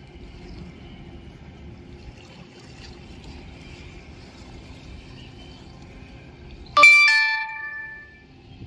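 A single bell-like chime sounding once, ringing with several clear pitches and fading over about a second and a half, loud over a steady background of wind and water noise.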